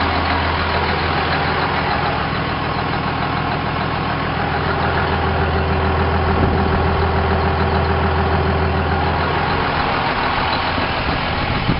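2003 International 7400 plow truck's diesel engine idling steadily.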